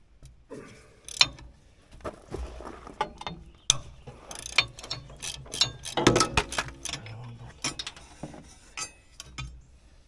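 Hand ratchet wrench clicking in irregular runs as a bolt on an engine-side bracket is worked by hand, with metal clinks of the socket and tool.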